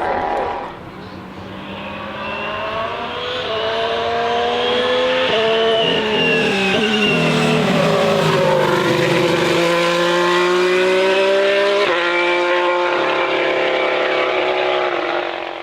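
Ferrari SF71H Formula 1 car's 1.6-litre turbocharged V6 running at high revs. It is quieter for the first couple of seconds, then the pitch climbs over several seconds and settles loud and high, with a few sudden jumps in pitch along the way.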